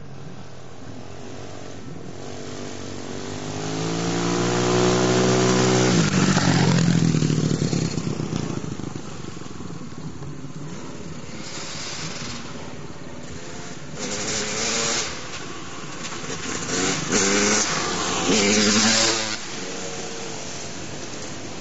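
Yamaha 250 YZ motocross bike's engine: it grows louder and higher in pitch over a few seconds, then drops in pitch as it passes about six seconds in. In the second half it is heard revving up in several short bursts.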